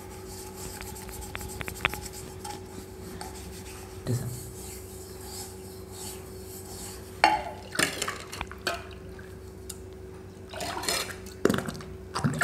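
A silver tumbler being rubbed by hand with cleaning paste over a steel bowl, with scattered knocks and scrapes of metal on metal, most of them in the second half. A steady low hum runs underneath.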